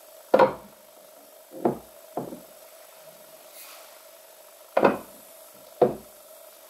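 Wooden-handled lathe chisels knocking against a pine tool cabinet's rack as they are slotted in: five sharp wooden knocks, the first the loudest, with a faint steady hum underneath.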